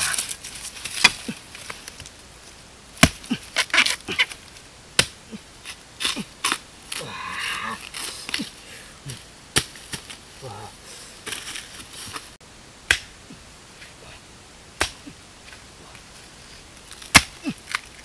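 Machete chopping into bamboo shoots at the base: a series of sharp, separate strikes at uneven intervals.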